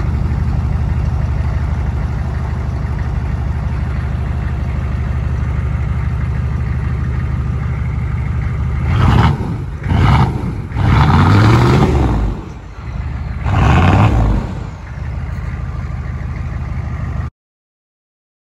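Turbo-diesel engine of a Chevrolet pickup idling with its exhaust clamped into an inflatable pool float, then revved four times about halfway through, the pitch rising and falling with each rev, before settling back to idle. The sound cuts off abruptly near the end.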